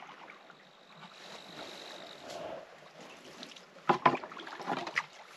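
Canoe paddled in to the riverbank: quiet paddle and water sounds, then a cluster of sharp knocks and clunks on the hull about four seconds in as it comes in to shore.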